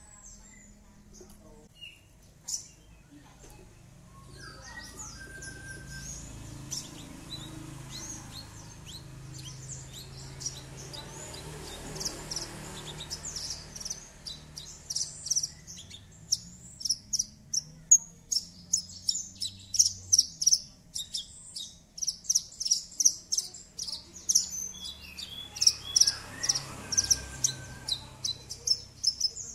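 Horsfield's bush lark (branjangan) singing in a cage: a rapid string of short, high chirps and trills, scattered at first, then coming almost without pause through the second half. A low steady rumble runs underneath through the middle.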